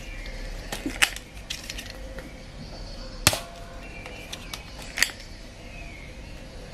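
Sharp plastic clicks and snaps from handling a Nerf N-Strike Elite Triad EX-3 blaster: three loud ones about two seconds apart, with fainter clicks between.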